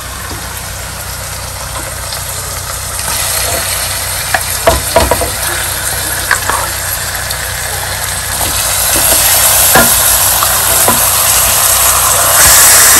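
Raw chicken pieces going into hot oil and onion-spice paste in a frying pan, sizzling. The sizzle grows louder in steps as more pieces go in, with a few knocks of the wooden spatula against the pan.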